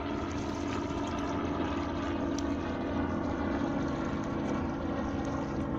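A steady engine drone, one unchanging pitch with no rise or fall.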